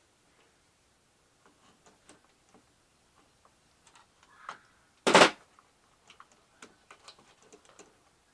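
Plastic parts of a Shark vacuum cleaner clicking and rattling as it is pulled apart by hand. There are scattered light clicks and one loud knock about five seconds in.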